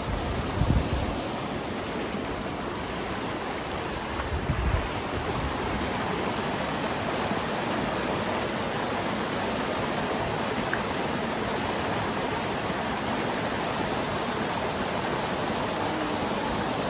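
Rocky forest stream rushing and splashing over boulders in small cascades, a steady even rush of water. Two brief low bumps on the microphone, about a second in and again around four and a half seconds, are the loudest moments.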